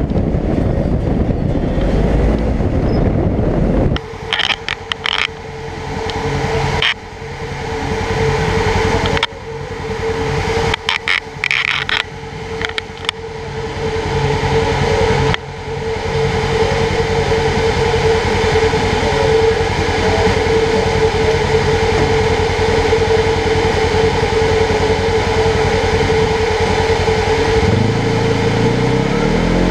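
Polaris General XP 1000 side-by-side's twin-cylinder engine driving, then dropping to a steady idle about four seconds in, with scattered knocks and rattles for the next several seconds. Near the end it revs up again and pulls away.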